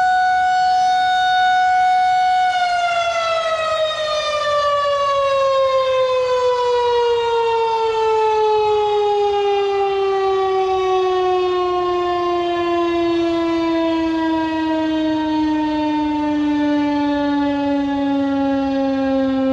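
A Federal Signal 2001-130 electromechanical warning siren sounds its steady Alert tone. About two and a half seconds in, the pitch begins a long, slow fall, as the siren winds down at the end of the signal.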